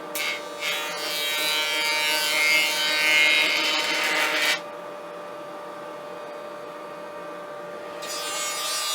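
Stationary woodworking machine running with a steady hum while a piece of timber is fed through it. There are about four seconds of loud cutting noise, then the machine runs on idle, and a second cut begins near the end.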